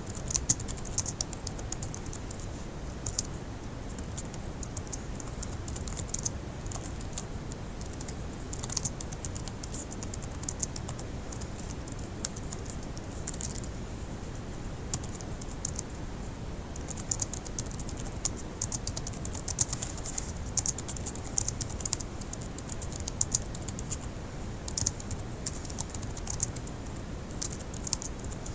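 Fast typing on a laptop keyboard: quick runs of light key clicks with short pauses between bursts, over a faint steady low hum.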